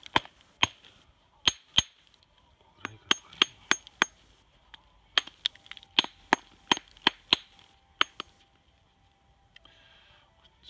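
A hammer striking a raw Japanese natural whetstone (Takao su-ita stone) in quick runs of sharp clinks with a high ring, two to six blows at a time with short pauses. The blows are the craftsman's tap test: the stone is struck to hear where it is weakly bonded and to split it there along its layers.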